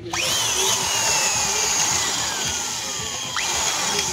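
Electric hand drill with a 10 mm bit boring into a motorcycle cylinder head to cut a seat for a thread insert. The motor starts with a whine that sinks steadily in pitch as the bit bites, then speeds up again twice near the end.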